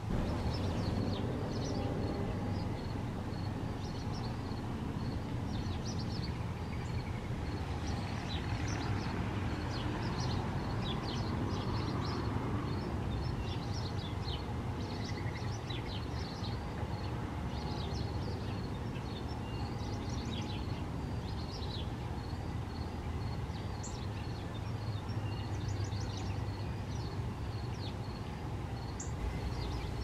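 Small birds chirping with many short, high chip notes, over a faint high note that repeats at an even pace. A steady low rumble runs underneath.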